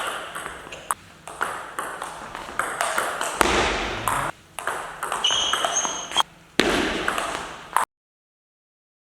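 Table tennis rally: the ball clicks sharply against bats and table in quick succession. A brief high-pitched squeak comes in the middle, and the sound cuts to dead silence near the end.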